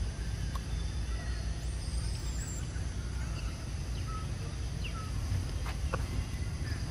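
Outdoor ambience: a steady low rumble with a few faint, short, high chirps scattered over it.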